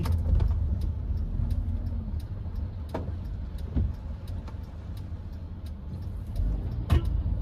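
Hyundai HB20 1.6 automatic's four-cylinder engine and tyres rumbling low, heard from inside the cabin, driving slowly on a wet street. Scattered light taps throughout, and one sharper knock near the end.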